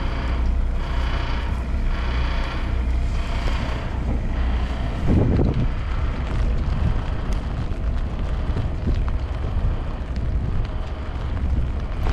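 Wind blowing hard across the microphone, a steady rushing with a louder gust about five seconds in.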